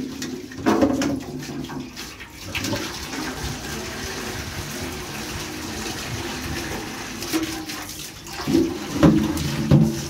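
Water pouring from a hose into a galvanized metal basin, a steady splashing for several seconds, as the basin is rinsed. Brush scrubbing and clanking of the metal basin come near the start and again near the end.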